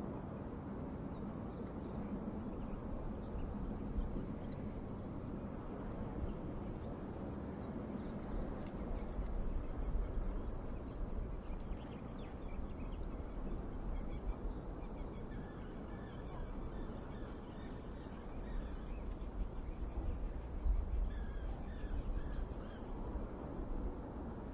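Outdoor ambience: a steady low rumble with a series of short, harsh bird calls repeating through the second half.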